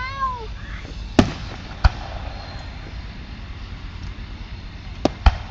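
Outdoor crowd ambience at a fireworks display, with a voice calling out at the start and four sharp clicks: two about a second apart early on and a quick pair near the end. The clicks sit where the bangs were cut out of the track, leaving splice clicks instead of the booms.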